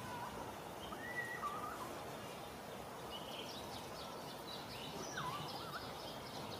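Faint outdoor ambience: a steady background hiss with scattered small bird chirps and short wavering whistles, a run of high chirps around the middle.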